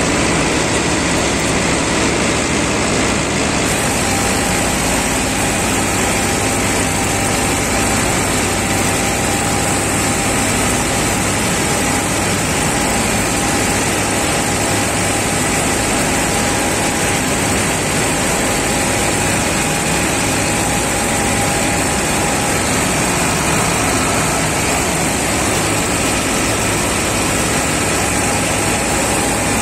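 Mahindra Novo tractor's diesel engine running steadily, with a steady high whine over the engine noise.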